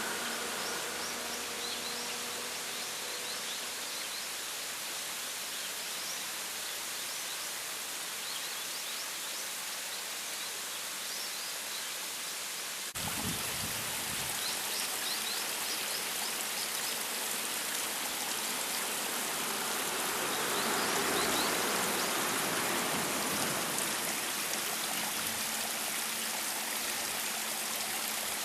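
Rushing water of a small snowmelt waterfall, fed by overflow from a spring well, splashing in a steady wash of noise. About halfway through the sound jumps a little louder and fuller.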